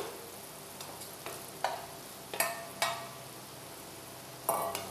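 Masala sizzling in a frying pan while fried okra is tipped in and stirred with a wooden spatula, the spatula knocking against the pan several times, most sharply near the end.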